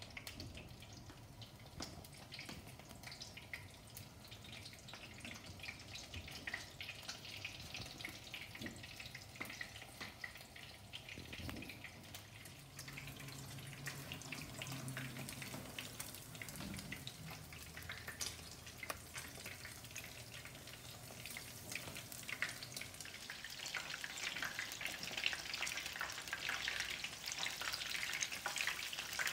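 Battered fish strips frying in shallow oil in a skillet, a steady sizzle full of small crackles and pops that grows louder over the last few seconds.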